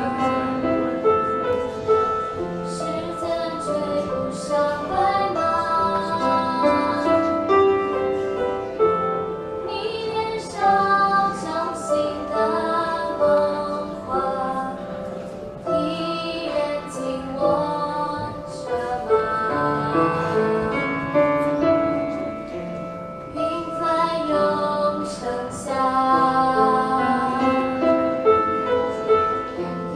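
Female voice singing a Mandarin pop ballad over instrumental accompaniment.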